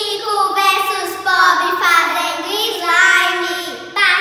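Young girls singing, with long held, gliding notes.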